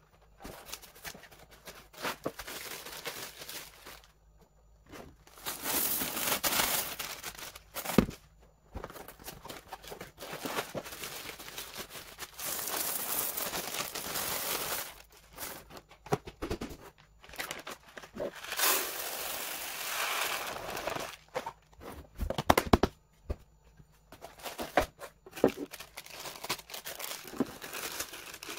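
Plastic packaging and bags crinkling and rustling in irregular spells, with a few sharp knocks.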